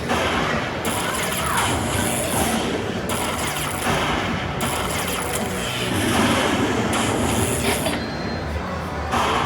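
Slot machine playing its win tally music while the bonus credits count up, over the steady hubbub of a casino floor.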